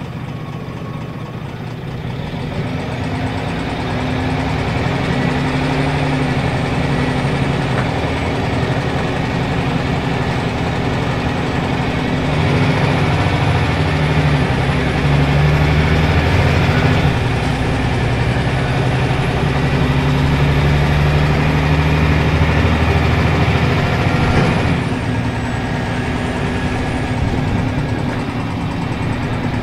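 Scania L94UB bus's nine-litre five-cylinder diesel and ZF automatic gearbox heard from inside the moving bus: the engine pulls steadily under load with a thin high whine, growing louder through the middle and easing off near the end as the bus slows.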